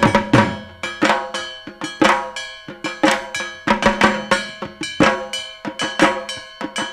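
Dhak drums beaten in a fast festival rhythm, with the heaviest strokes about once a second and quicker strokes between them. A struck metal gong rings along with the drums.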